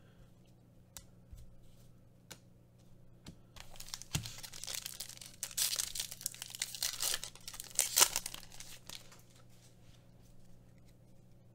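A Panini Mosaic soccer card pack's shiny wrapper is torn open by hand, crinkling and ripping, with the sharpest rip about eight seconds in. A few light clicks come before it.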